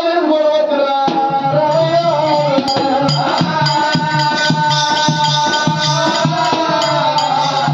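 Oggu Katha folk music: singing that settles into one long held note about three seconds in, over a steady barrel-drum beat and jingling rattle-like percussion.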